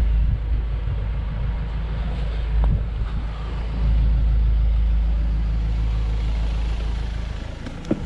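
Ford Transit van driving: a steady low rumble of engine and road noise, growing louder about four seconds in and easing off near the end.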